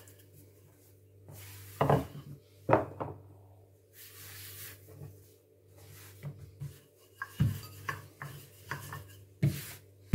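Wooden rolling pin rolling out shortcrust pastry on a granite worktop: soft rubbing passes over the dough, with a few sharp knocks of wood on stone as the pin is set down and picked up and the dough is turned.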